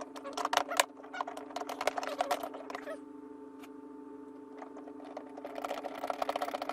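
Rapid small clicks and scratches from hands working on the plastic parts of a kids' ride-on toy car during assembly, in two bursts with a pause between, over a steady low hum.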